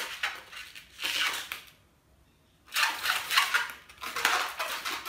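Black latex modelling balloon being twisted and squeezed in the hands, the rubber rubbing and squeaking. It comes in two stretches, with a short pause just under two seconds in.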